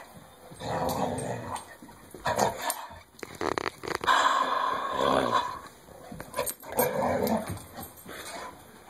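Pit bull–Labrador mix growling in play, in about three bouts, while gripping and shaking a rubber KONG toy, with a few short clicks and knocks between the bouts.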